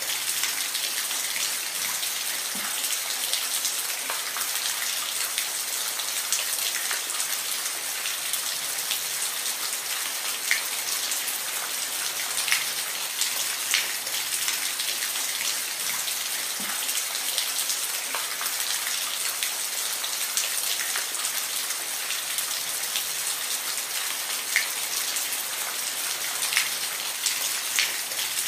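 Steady rain falling, an even hiss with many individual drops ticking sharply on a nearby surface.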